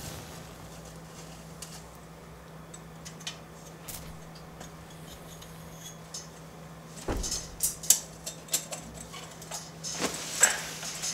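Oil lantern being handled on a metal bunk bed: scattered small clicks, a low thump about seven seconds in, then a run of sharp metal clinks and rattles as the lantern is lifted. A faint steady hum sits underneath.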